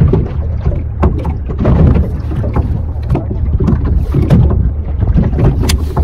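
Small fishing boat's engine running steadily, heard under wind buffeting the microphone, with frequent irregular knocks.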